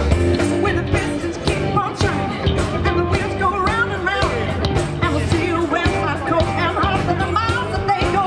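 Live rock band playing: electric guitar, bass guitar and drum kit, loud and steady through a festival PA.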